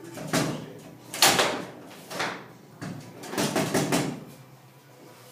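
Table football in play: the ball and the rod handles knock and clatter against the wooden table, with a run of sharp knocks, the loudest about a second in and a cluster of them around three and a half to four seconds.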